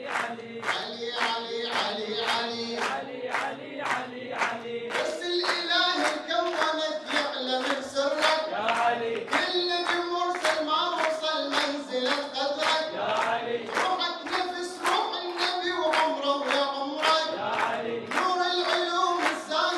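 A man singing an Arabic devotional praise song into a microphone, accompanied by steady rhythmic hand-clapping in time with the melody.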